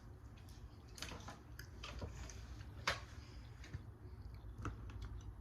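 A person chewing and eating seafood boil close to the microphone: soft wet, squishy mouth sounds with a few sharp clicks, the loudest about three seconds in.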